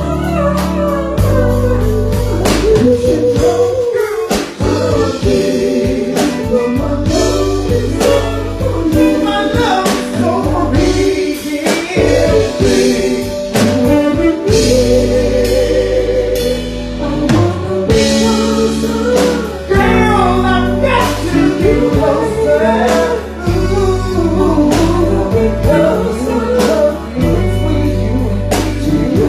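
Live band with a lead singer: a sung melody with vibrato over drums, guitar and steady low bass notes, loud and continuous, heard as a band sound check.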